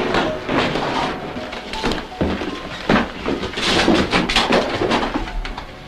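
Hurried footsteps and a door as several men move quickly through a doorway, a run of short knocks and scuffs that is busiest about three to four and a half seconds in.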